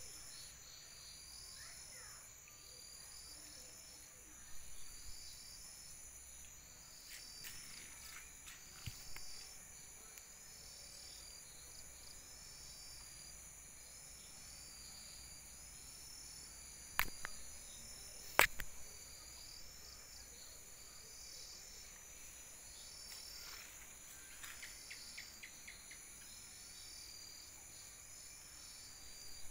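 Night insects: a steady high drone with a short chirp repeating about once a second, like crickets. About two-thirds of the way in come two sharp clicks a second and a half apart, the loudest sounds.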